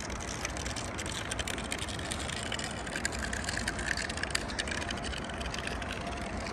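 Steady rumble of distant highway traffic, with a scatter of light ticks and crunches through the middle.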